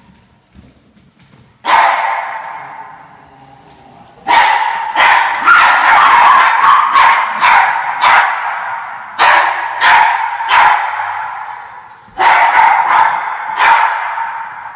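Norfolk terriers barking excitedly in quick runs of sharp barks, about two a second, in four bouts with short pauses between. Each bark trails off in an echo.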